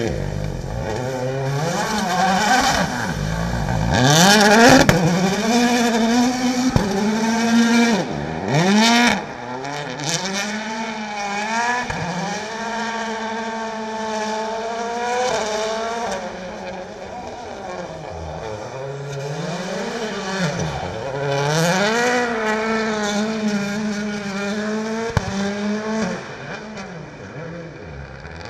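Hyundai i20 WRC rally car's 1.6-litre turbocharged four-cylinder engine driven hard, its note climbing through the revs and dropping again and again as it changes gear and lifts for corners. It is loudest around four to nine seconds in, with brief harsh noisy bursts, and fades near the end.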